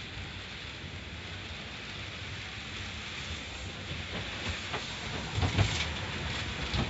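Car wash water jets spraying onto the car, heard from inside the cabin: a steady rain-like hiss that grows louder, with scattered knocks and thuds from about four seconds in.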